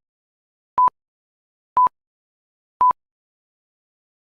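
Electronic countdown-timer beeps: three short, identical single-pitch tones about a second apart, the answer timer of a quiz ticking down after the options are read.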